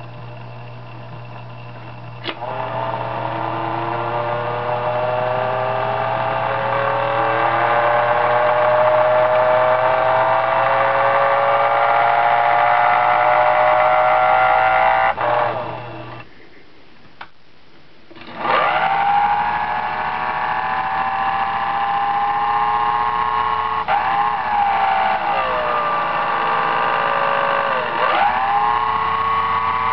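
Levin watchmaker's lathe running under its belt-drive electric motor, speed set by a foot-pedal control: after a click the motor whine climbs slowly in pitch as it speeds up. It stops suddenly about halfway through, starts again with a quick rise, and twice dips and picks back up near the end as the pedal is eased and pressed.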